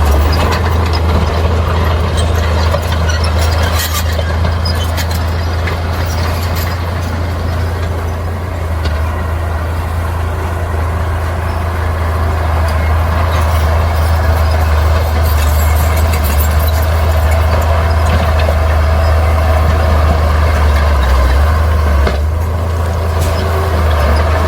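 Heavy diesel earthmoving machinery running steadily: a deep engine drone with scattered short metallic clicks, dipping slightly in loudness a couple of times.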